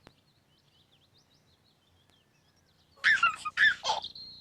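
Faint birds chirping. About three seconds in, a few loud, high, squeaky cries with sliding pitch break in, then a short high steady tone.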